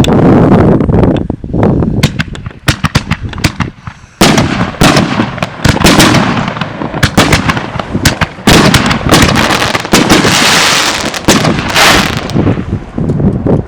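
Consumer fireworks going off: a rapid string of sharp reports and pops, with a short lull about four seconds in and a dense burst of crackling about ten seconds in. Strong wind buffets the microphone.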